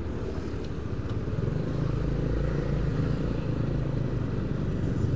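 Motor scooter engine pulling away, growing louder about a second and a half in and then running steadily.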